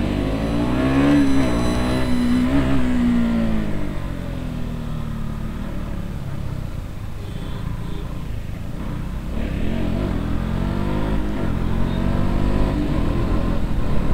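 KTM RC sport bike's single-cylinder engine under way, heard from the rider's seat: revs rise and fall with throttle and gear changes over the first few seconds, settle lower through the middle, then climb again near the end.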